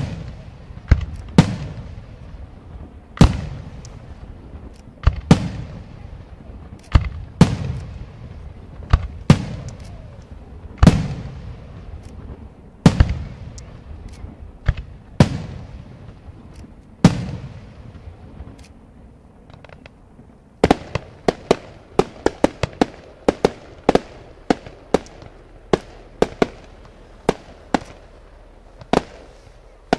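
Aerial firework shells bursting, a loud bang about every two seconds, each trailing off over a second or so. From about twenty seconds in comes a quicker run of smaller, sharper cracks, several a second.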